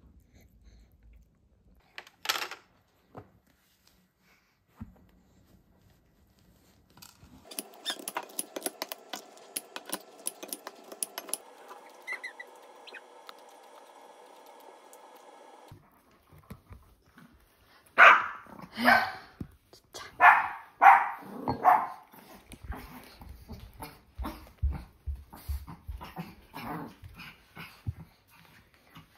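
A dog whining and yipping in a run of loud, short calls about two-thirds of the way in, with softer calls and low thumps after. Earlier there is a steady hum with clicking.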